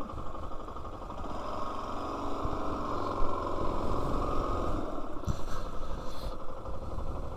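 Motorcycle engine running steadily at low revs, heard from the rider's seat, a little louder from about two seconds in.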